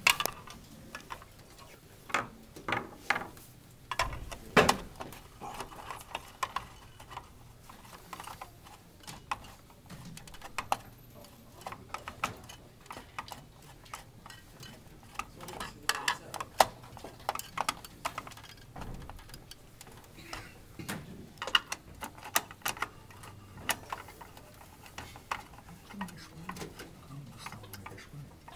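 Irregular clicks, taps and light knocks of a screwdriver and metal and plastic parts as a CPU cooler is fastened down inside an open desktop PC case, while a replacement processor is being fitted.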